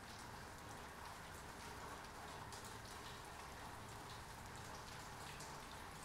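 Steady rain falling on wet pavement: an even hiss flecked with many small ticks of individual drops.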